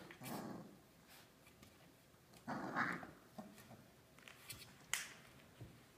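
Four-week-old Labradoodle puppies giving two short vocal sounds, one at the start and one about midway, with a few light sharp clicks between them.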